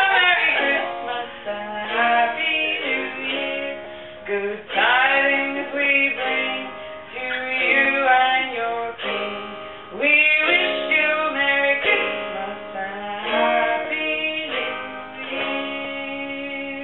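A song with singing over a plucked guitar accompaniment.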